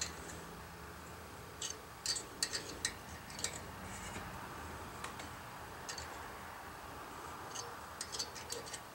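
Thread tap being turned slowly by hand with a wrench into a stripped bolt hole in a lawn mower cylinder head, cutting new threads. Faint, scattered metal clicks, bunched about two to three seconds in and again near the end.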